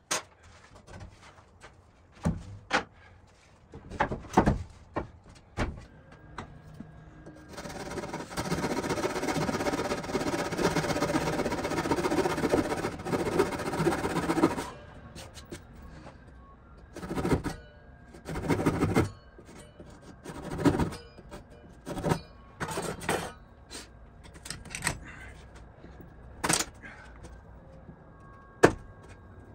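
Woodworking sounds: scattered knocks and clunks of wood being handled. A power tool with a steady motor tone runs for about seven seconds in the middle.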